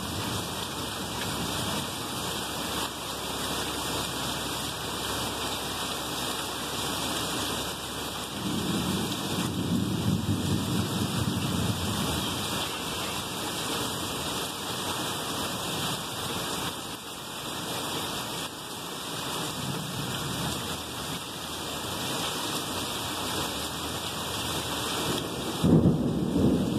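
Rain pouring steadily, with thunder rumbling: a long roll about nine seconds in, a weaker one around twenty seconds, and a sudden louder clap near the end.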